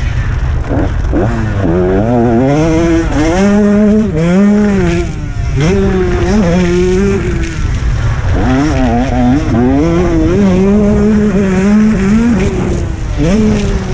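Two-stroke motocross bike engine revving hard, its pitch climbing and dropping again and again as the rider rolls the throttle on and off and shifts through the gears.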